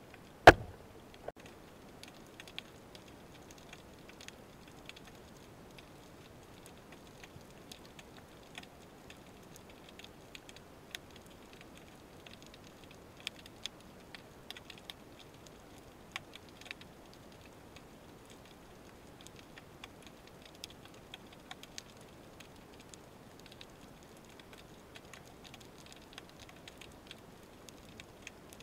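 Underwater ambience picked up by a camera on a speargun: one loud sharp knock about half a second in, then scattered faint clicks and crackles over a low steady hiss.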